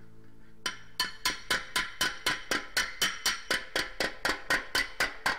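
Rapid, evenly spaced hammer blows on the sheet-metal lid of a BSA motorcycle tool box held over a metal stake, about four strikes a second, each with a short metallic ring. The blows start just under a second in: dents being hammered out of the panel.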